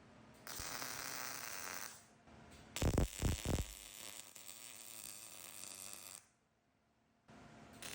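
Arc welder tacking steel uprights together: a short burst of even arc hiss, then a longer one of about three seconds with a few heavy low thumps at its start, and a further burst near the end.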